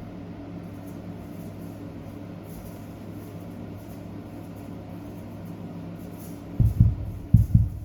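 Steady low hum with faint rustling while warp yarn is handled and knotted into bundles. Near the end come a few dull low thumps in quick pairs.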